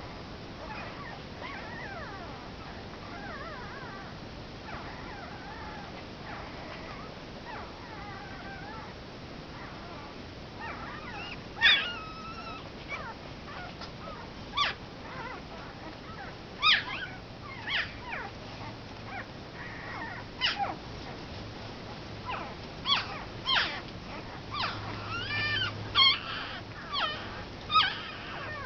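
One-week-old Komondor puppies whimpering and squeaking. The cries are faint and wavering at first, then from about halfway through come as short, louder, high-pitched squeals and yelps, several a second at times.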